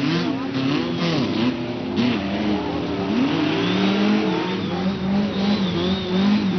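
Engines of off-road safari competition cars revving hard, their pitch repeatedly swinging up and down as they drive through mud, with two engines heard at once.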